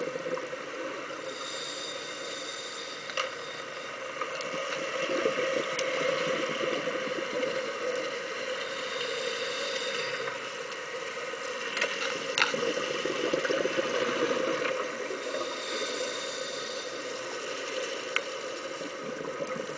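Scuba regulator breathing heard underwater: a high hiss of inhaling about every seven seconds, each followed by a few seconds of louder rushing from exhaled bubbles, over a steady muffled underwater noise.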